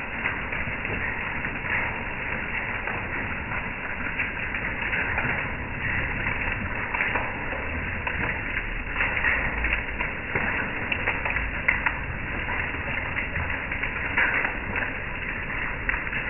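Hail mixed with heavy rain falling on a wooden deck: a steady hiss dotted with many small sharp ticks of hailstones striking.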